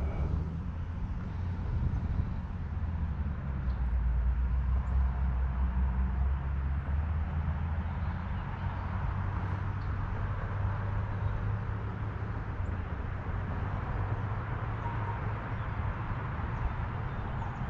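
Wind buffeting the microphone: a steady low rumble over a fainter rushing hiss.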